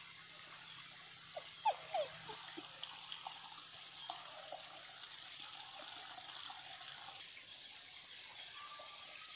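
Tropical forest ambience: a steady high insect hiss, with a cluster of short chirping calls and clicks about one and a half to two and a half seconds in.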